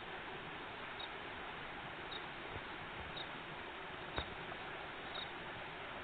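Steady rush of a small river running past, with a faint high chirp repeating about once a second and a single sharp click about four seconds in.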